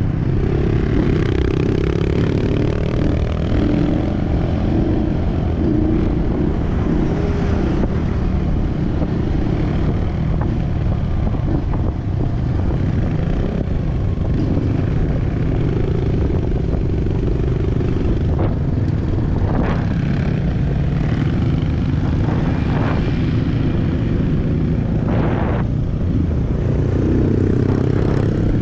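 Trail motorcycle engine running steadily under way, with a few brief knocks in the second half.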